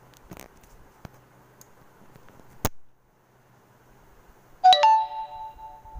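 A few clicks and a sharp tap as a hand handles the phone camera, then, about three-quarters of the way through, a bright chime struck twice in quick succession that rings on for about a second.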